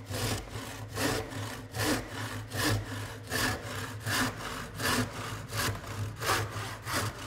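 Crosscut hand saw cutting across a 1x wooden board in smooth back-and-forth strokes, an even rhythm of rasping strokes about two a second.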